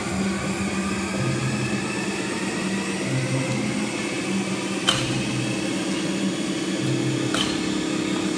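Background music with a repeating bass line over a steady noisy hum. Two sharp metallic clinks come through about five and seven and a half seconds in, from the loaded barbell as it is cleaned to the shoulders.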